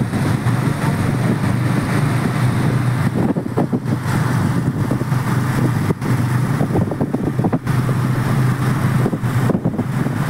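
Motorcycle running steadily while riding along a road, with wind rushing over the microphone.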